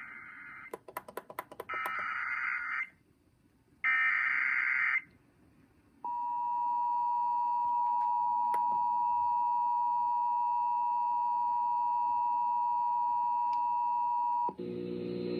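Emergency Alert System SAME header: three data bursts of rapid warbling tone, about a second each and a second apart, with some clicking between the first two. After a short pause comes the EAS attention signal, a steady tone lasting about eight seconds, which gives way to a buzzier sound near the end.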